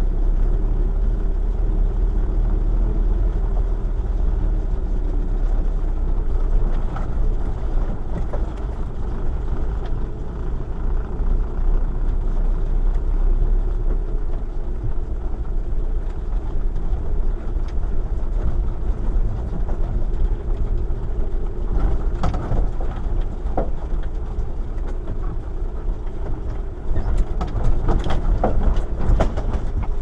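UAZ Bukhanka (UAZ-3909) van's engine running steadily as it drives a rough forest dirt track, heard from inside the cab as a low drone. Brief clusters of rattling knocks break in about three-quarters of the way through and again near the end.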